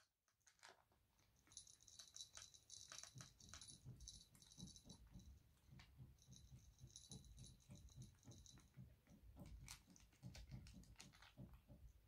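A kitten crunching and chewing dry kitten kibble: faint, irregular small crunches and clicks with soft low thumps.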